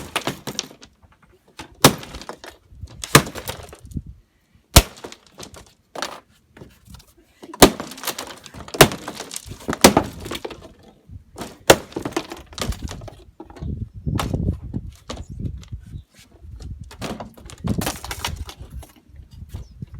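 Vintage electronics being smashed: a dozen or so hard, irregular blows with cracking and breaking of circuit board and plastic, and pieces clattering and scraping between the strikes.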